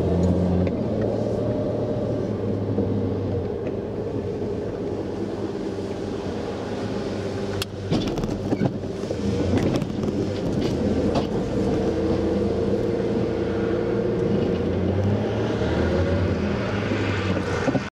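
A 1992 Ford Ranger's 2.9-litre V6 engine running as the truck moves, heard from inside the cab. A few sharp knocks and clatters come about eight to eleven seconds in.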